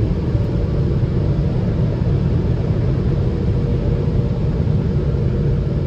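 Steady low rumble heard from inside a car's cabin, even throughout with no distinct knocks or changes.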